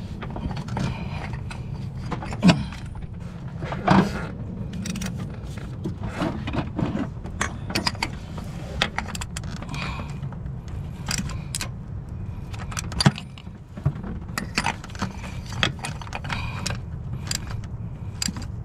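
Metal hand tools clicking and clinking irregularly as the oil pressure sensor is turned and snugged into place, over a steady low hum.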